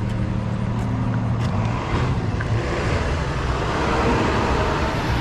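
A motor vehicle's engine running steadily, with traffic-like noise growing louder about two seconds in.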